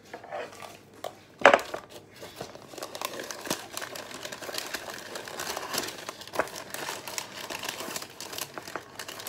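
Baking paper crinkling and rustling as it is pressed and folded into a metal loaf tin, with many small irregular crackles. A single sharp knock about a second and a half in is the loudest sound.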